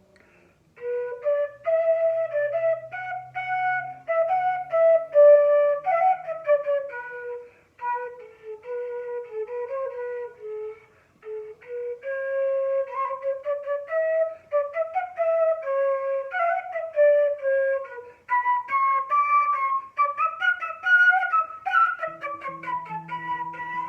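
Flute playing a melody of short notes in a two-beat meter, starting in the middle range, dropping low and climbing back up, with turn-signal cue figures thrown in.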